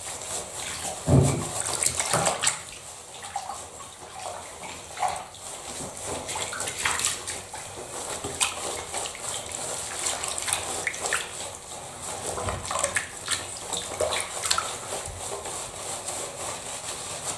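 Bathwater sloshing and splashing as hands scrub and lather a wet cat sitting in a shallow bath, in irregular splashes with the loudest about a second in.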